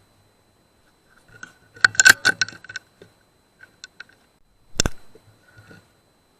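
A quick run of sharp metallic clicks and rattles, then a single sharp shot from a .177 PCP air rifle about five seconds in.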